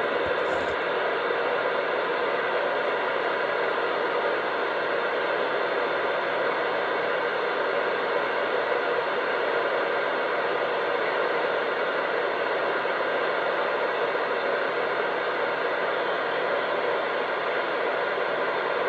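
Steady, even static hiss over a CB radio speaker: another station keyed up and holding a long transmission as a test.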